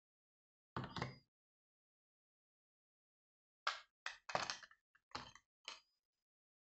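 Handling noise: one short knock about a second in, then a quick run of five or six sharp knocks and rustles, like cordless-phone parts and cables being picked up and moved on a table.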